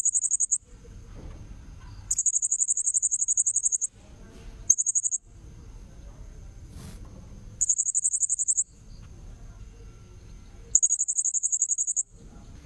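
Blue-crowned hanging parrot (serindit) giving repeated bursts of shrill, very high, rapid chirping, five bursts about a second or two apart. A thin steady high tone and a low background rumble run under them.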